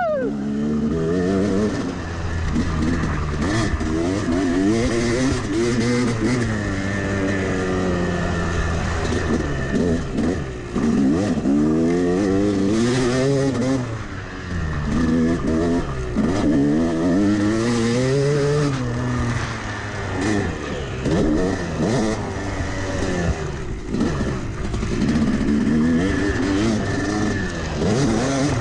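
Yamaha 250 two-stroke dirt bike engine revving up hard and backing off again and again as it is ridden, heard close from the bike.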